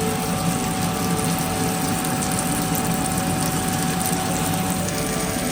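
Steady sizzling of onions, chillies and spices frying in oil in a pan, with a steady hum underneath.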